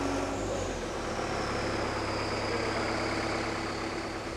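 Aircraft tractor (tug) running steadily as it moves an A350 fuselage on its nose wheel, a low machine hum with a faint high whine that slowly drops in pitch.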